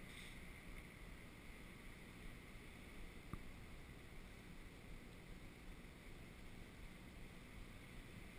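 Near silence: faint steady outdoor background hiss, with one faint click a little over three seconds in.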